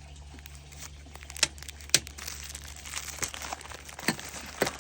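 Plastic bead bags crinkling as they are handled and pulled open, with a few sharp clicks, the loudest about two seconds in.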